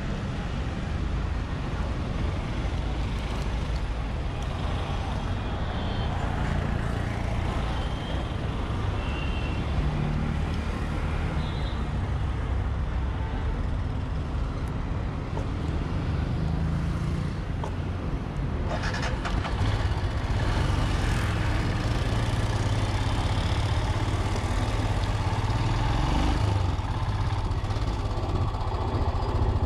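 Royal Enfield Himalayan's single-cylinder engine running, mixed with street traffic. About two-thirds of the way in, the engine note grows steadier and a little louder as the bike moves off.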